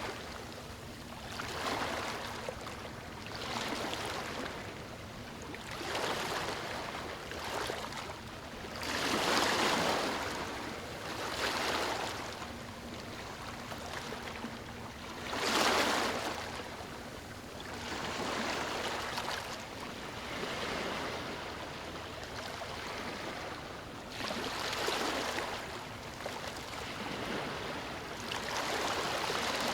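Ocean waves washing ashore, a hiss of surf that swells and fades every few seconds, with the biggest wash about halfway through.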